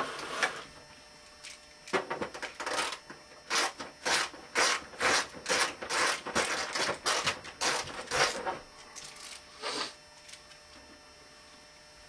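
A Phillips screwdriver working screws out of a monitor's back cover: a run of short clicks and scrapes, about two a second, for several seconds, then a few scattered ones.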